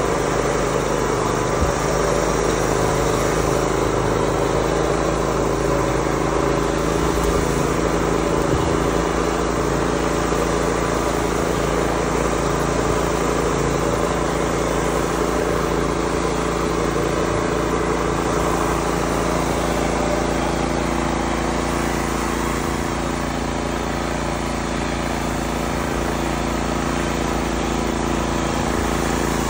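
Palo Verde Innovations tracked crop sprayer running steadily, its motor and blower holding a constant pitch as it moves along and sprays mist.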